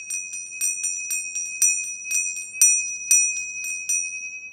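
A small high-pitched metal bell or chime struck over and over, about twice a second with lighter strokes between. It rings on and fades after the last strike near the end.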